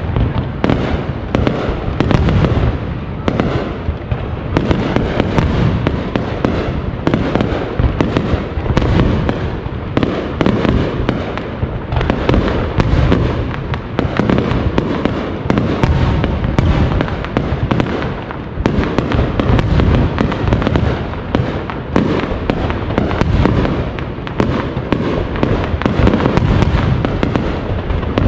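Aerial firework shells bursting in a dense, unbroken barrage, bang after bang with no pause.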